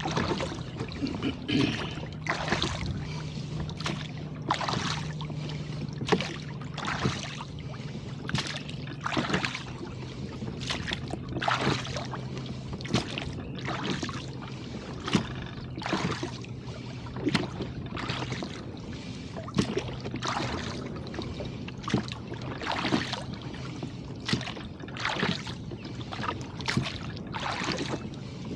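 Oars rowing a boat: a steady rhythm of blade splashes and knocks, about one to two a second, with water washing along the hull. A faint steady low hum runs underneath.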